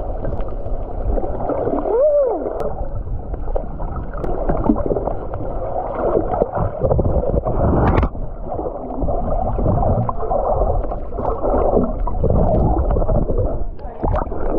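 Muffled underwater water sound picked up by a submerged camera: continuous sloshing and gurgling, with a brief tone that rises and falls about two seconds in and a sharp click about eight seconds in.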